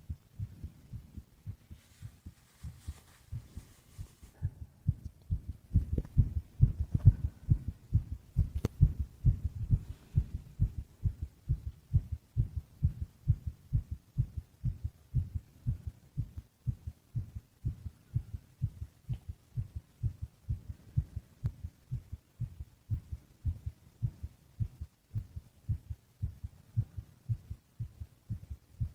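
A sleeping man's heartbeat: a steady rhythm of low thumps, louder from about six seconds in.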